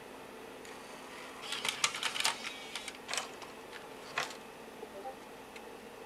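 Slot-loading combo drive ejecting a DVD: a faint high whine, then a quick run of mechanical clicks about a second and a half in, followed by two single clicks.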